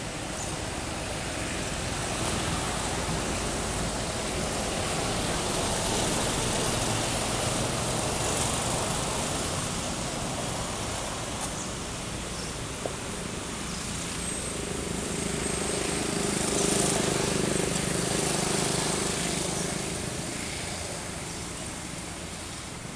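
Steady outdoor noise of passing road traffic, swelling and fading as vehicles go by, with a low engine hum as a vehicle passes about two-thirds of the way through.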